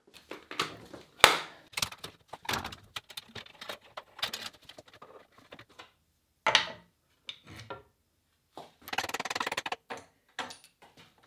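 Knocks and clicks of hand work on a homemade wooden bandsaw as it is taken apart: a loud knock about a second in, scattered sharp clicks and taps, and a quick run of clicks near the end.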